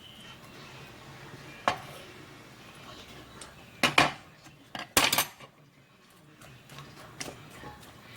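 Kitchen utensils and dishes clinking and knocking: a few separate sharp knocks, the loudest cluster about four to five seconds in.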